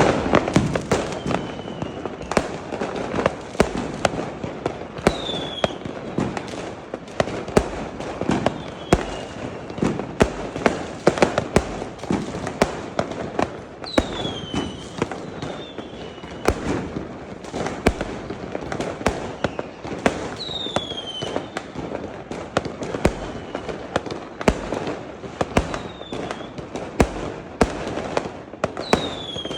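Fireworks going off in a dense, continuous barrage of bangs and crackling pops, with a short falling whistle every few seconds.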